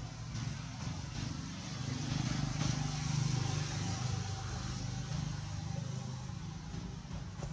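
A motor vehicle's engine running, a steady low hum that grows louder about two seconds in and then slowly fades.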